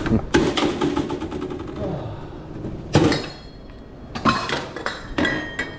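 Sharp knocks and clatter of food-prep utensils and containers as hot dogs are assembled at a vendor's stand. The loudest bang comes about three seconds in, and a few lighter knocks follow.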